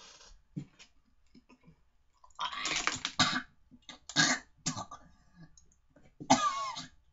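A young man coughing and gagging on a mouthful of foul-flavoured jelly beans: four harsh bursts from about two and a half seconds in, the last one a strained retch with a wavering voice.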